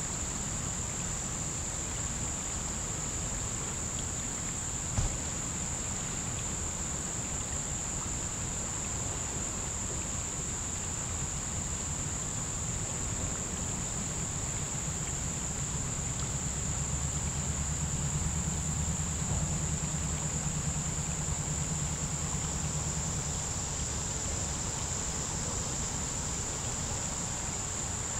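Insects trilling in one steady, high, unbroken note, over a low rumble that grows louder for several seconds midway through. A single sharp click about five seconds in.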